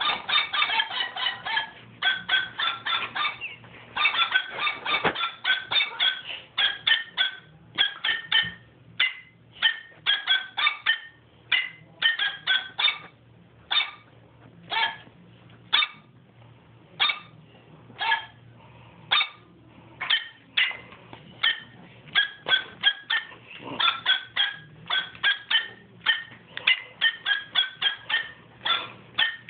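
Dog hand puppet's recorded bark, set off over and over to play a song: short yipping barks at several pitches, coming in quick runs of several a second, thinning to about one a second in the middle before speeding up again near the end.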